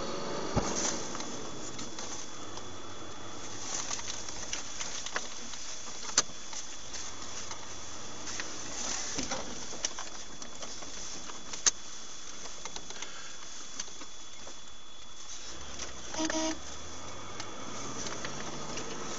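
Vehicle engine and road noise heard from inside the cabin while driving, steady, with a few sharp clicks or knocks. The engine's pitch rises and falls near the start and again in the last few seconds, and a short tone sounds once about three quarters of the way through.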